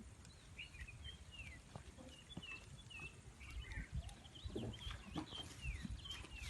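Small birds chirping, many short quick calls, most sliding down in pitch, over a low background rumble.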